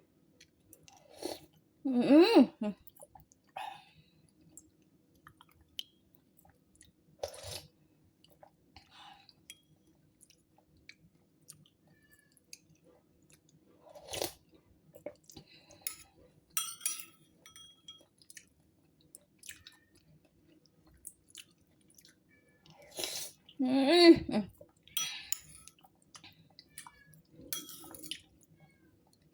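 A person eating papaya herbal soup close to the microphone: scattered soft chewing and wet mouth clicks, with two louder, longer mouth sounds, about two seconds in and again near 24 seconds.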